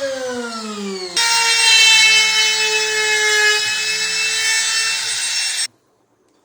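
Electric power tool cutting a circular speaker hole through a wooden box panel. The motor's pitch sags under load, then about a second in it jumps louder and runs steady before stopping suddenly near the end as the circle is cut through.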